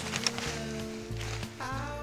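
Background music, with held bass notes changing in steps.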